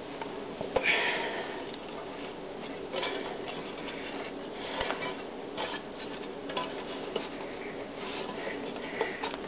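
Thick frying pan being bent and rolled up by hand: scattered small clicks and creaks of the metal as it folds and the grip shifts. There is a sharp breath from the strained man about a second in.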